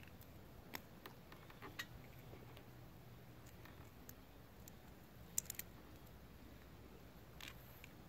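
Faint, scattered clicks and snips of a handheld wire stripper/crimper being worked on a wire, a few separate clicks with a short cluster about five and a half seconds in.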